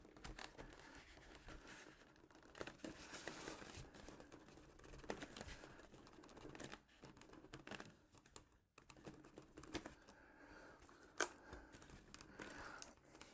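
Faint rubbing, scraping and small clicks of hands working a foam model airplane's tail, squeezing the vertical stabilizer into its tight-fitting slot in the fuselage.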